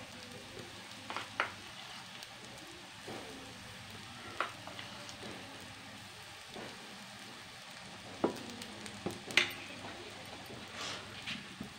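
Gram-flour (besan) fritters deep-frying in hot oil: a steady sizzle with scattered pops and sharp clicks, the loudest a little after eight and nine seconds in.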